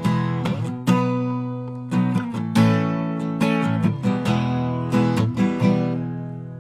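Song outro on strummed acoustic guitar: rhythmic chord strums, then a last chord left ringing and fading away near the end.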